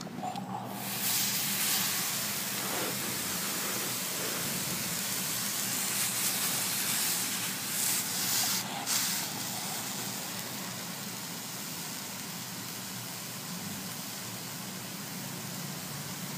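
Steam iron pressed on a damp towel over carpet, hissing steadily as steam is driven into the pile to lift a furniture dent; the hiss swells twice midway, then settles.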